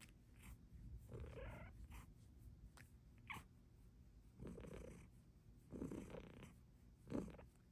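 Silver Bengal cat purring softly, a steady low rumble, with a few short, faint sounds over it.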